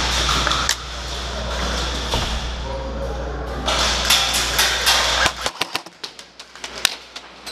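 Loud, steady rushing din with a low hum. About five and a half seconds in the hum drops away and a string of sharp, irregular clicks and cracks follows: airsoft shots and BBs striking the barriers.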